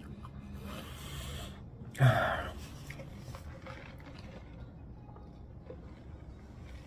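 A man breathes out heavily once, a short breathy sound just after two seconds in, after a softer breath; the rest is quiet room tone.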